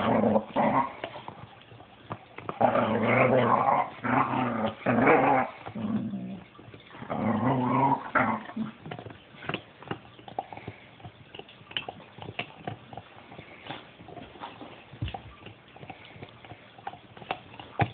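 Dog making long, drawn-out, pitched vocal sounds in several runs of a second or more during the first half, then going quieter, leaving only scattered faint clicks.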